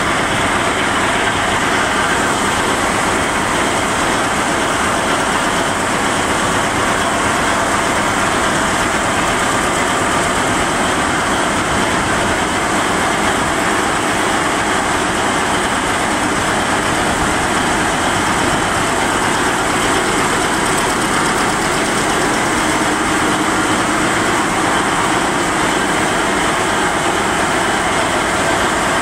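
Itema R9500 rapier weaving loom with a jacquard head running at full speed: a loud, steady, fast mechanical clatter of a weaving machine in production.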